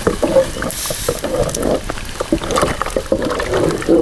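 Wooden spoon stirring water in a clay cooking pot, with irregular knocks and scrapes of wood against clay. The water is not yet hot.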